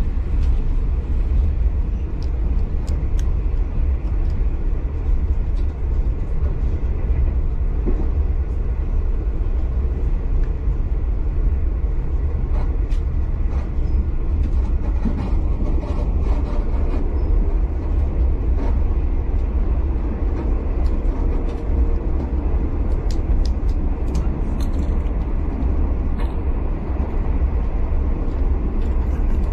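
V/Line passenger train running along the track, heard from inside the carriage: a steady low rumble with scattered light clicks and rattles.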